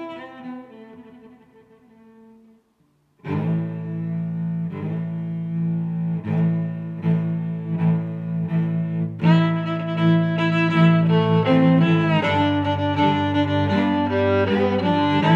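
Background music on low bowed strings. One passage fades out, and after a brief gap a new one starts about three seconds in, growing fuller and louder about nine seconds in.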